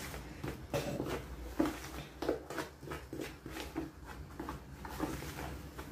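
Light, irregular taps and knocks of kitchen utensils and containers being handled while dough ingredients are prepared, over a low steady hum.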